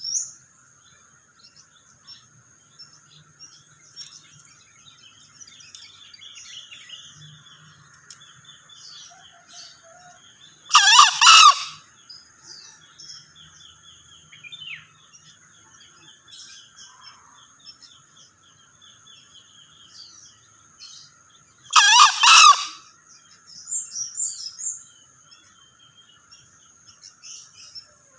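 Male green junglefowl crowing twice, each a short call of about a second, roughly eleven seconds apart, over a steady faint high-pitched background hum and scattered small bird chirps.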